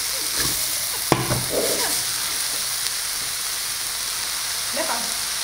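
Shredded savoy cabbage frying hard in a pan, a steady sizzle as it browns and caramelizes. A single sharp clack about a second in.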